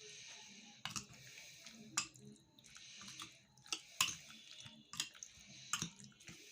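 Boneless chicken pieces being mixed by hand into a marinade of ginger-garlic paste, spices and soy sauce: faint, irregular wet squishes and small clicks.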